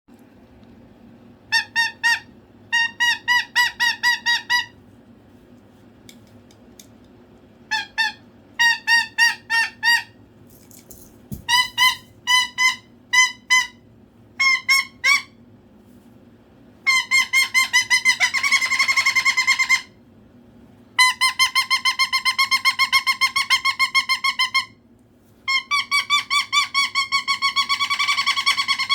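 Cockatoo calling for attention in runs of short, high, repeated notes, about four or five a second. The runs are broken by pauses, starting as short bursts and growing into long unbroken strings in the second half.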